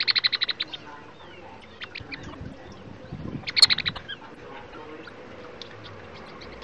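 Quail calling: a short burst of rapid repeated notes at the start, another about three and a half seconds in, with faint chirps between.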